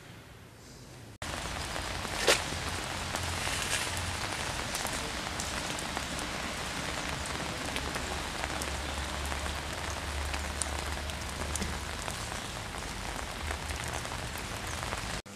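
Steady rain falling on wet ground, an even hiss that starts abruptly about a second in, with one sharp click about two seconds in.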